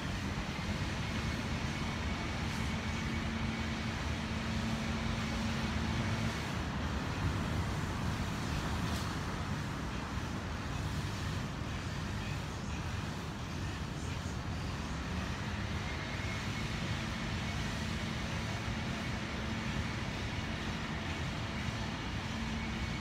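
Steady road traffic noise, a low rumble with a droning hum for the first six seconds and again from about fifteen seconds on.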